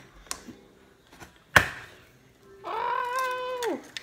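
An egg knocked sharply once against the edge of a plastic mixing bowl to crack it, with a few lighter taps around it. Near the end a high voice holds a note for about a second, then slides down.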